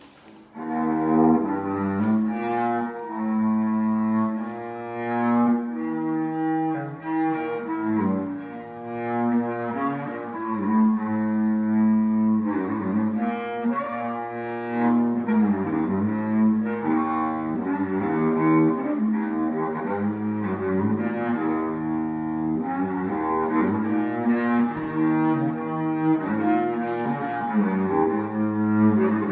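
Cello fitted with a 3D-printed bridge, bowed, playing a melody of held notes that change every second or two; the playing starts about half a second in.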